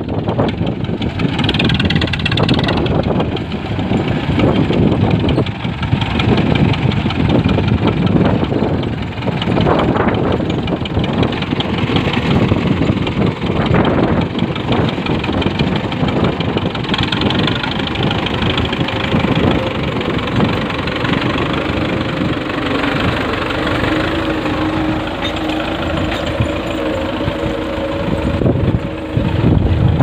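Belarus tractor's diesel engine running steadily under load while pulling a tine cultivator through the soil, with a steady hum that comes in during the second half.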